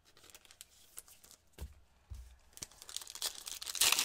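Foil wrapper of a trading card pack crinkling and tearing as gloved hands rip it open, building up in the second half and loudest near the end. A soft thump about one and a half seconds in.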